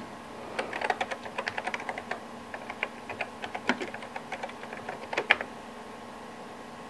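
Keys typed in a quick irregular run on a computer keyboard, entering a VMS mount command, ending with a firmer keystroke as the command is sent, about five seconds in.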